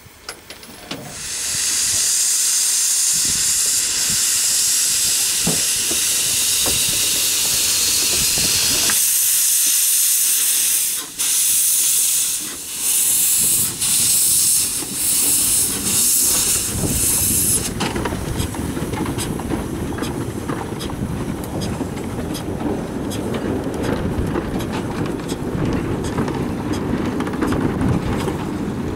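Narrow-gauge steam tank locomotive hissing loudly from about a second in, with steam escaping at its cylinders, and the hiss breaking into rhythmic puffs as it moves off. About two-thirds of the way through the hiss stops, and the train's wagons roll past with a low rumble and a steady clicking of wheels on the rails.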